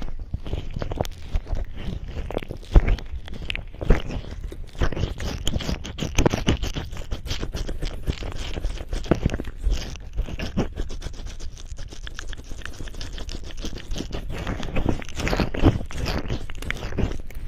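Fingers massaging the back of a microphone's ear with cream and oil, heard up close: continuous, irregular rubbing with many small wet clicks.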